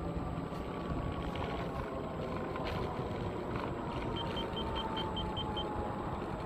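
Ninebot Mini Pro self-balancing scooter riding along, with wind rushing over the microphone and a thin motor whine that falls slowly in pitch as it slows down. A little past halfway, a quick run of about eight short, high beeps.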